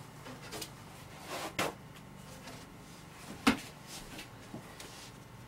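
Soft handling noises of painting supplies on a worktable: a few light knocks and rustles, the sharpest about three and a half seconds in, over a low steady hum.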